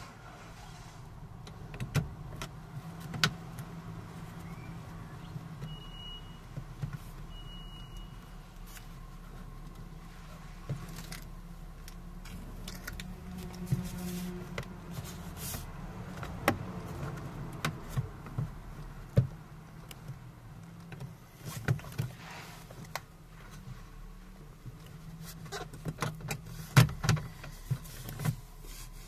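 Hands pressing and fitting a plastic door trim panel onto a Renault Clio 1 door: scattered clicks and knocks of plastic, the loudest near the end, over a steady low hum.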